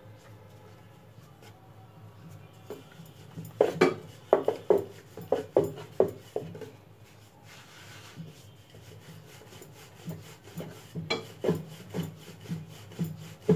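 Wooden rolling pin rolling out dough on a floured wooden board: two runs of quick back-and-forth strokes, about two or three a second, the first starting a few seconds in and the second near the end.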